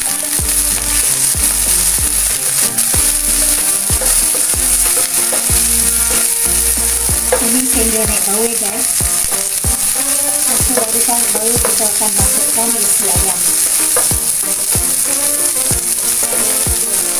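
Sliced red onion and chopped garlic sizzling in hot oil in a nonstick frying pan, with a steady high hiss, while a wooden spatula stirs them, scraping and knocking against the pan many times.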